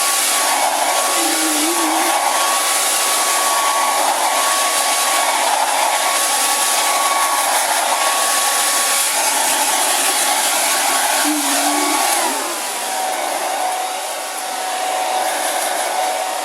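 Hair dryer running steadily, a blowing rush with a whine over it. About twelve seconds in, the whine drops in pitch and the dryer runs a little quieter.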